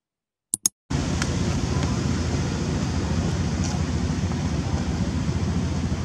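Two quick click sound effects as the subscribe animation's bell is tapped, then about a second in a steady low outdoor rumble begins and runs on evenly.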